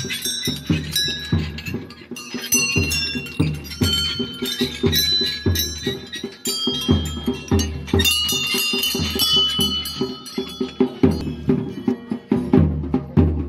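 Bells ringing repeatedly over a steady drum beat, with no pause in the rhythm.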